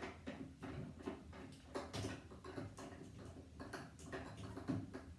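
Light, irregular clicks and taps of hands handling and fiddling with a portable air conditioner and its parts, with a slightly louder knock about two seconds in and another near the end.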